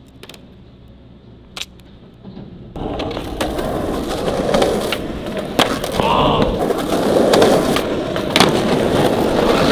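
Skateboard wheels rolling on rough asphalt, starting suddenly about three seconds in, with sharp clacks of the board as a trick is popped and landed near the end.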